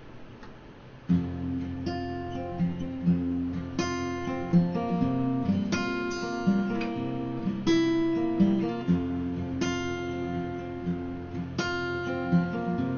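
Acoustic guitar strumming chords, starting about a second in, as the instrumental intro of a song before the vocals come in.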